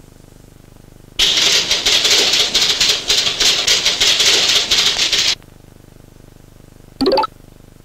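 Cartoon sound effect: a loud rattling, hissing noise starts about a second in and runs for about four seconds before stopping abruptly, then a short sharp sound comes near the end.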